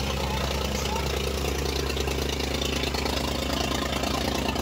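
Mahindra 265 DI XP Plus tractor's three-cylinder diesel engine running steadily as the tractor drives up close.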